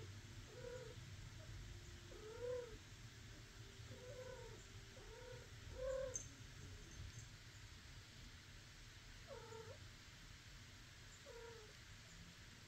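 A domestic cat giving a series of short, quiet meows, seven in all, each rising then falling in pitch, with a pause of a few seconds after the fifth.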